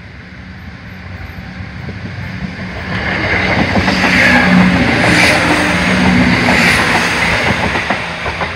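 Class 170 Turbostar diesel multiple unit passing close by. Its engine and wheel noise build up over the first three seconds, stay loud for about four seconds with wheels clicking over the rails, then begin to fade near the end.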